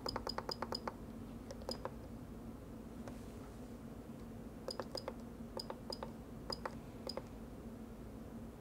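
Faint, sharp key or button clicks: a quick run of about five a second at the start, then a pause, then a slower string of single presses. These are keys being pressed to step through settings menus, with a faint steady hum underneath.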